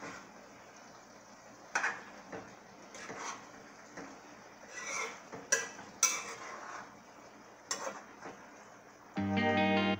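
Metal spoon stirring cabbage in a metal pot: a scattering of short clinks and scrapes against the pot. Guitar music comes in loudly about nine seconds in.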